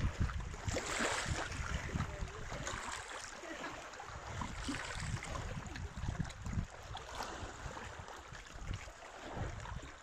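Wind gusting across the microphone in uneven swells, over a steady rush of wind and lapping lake water.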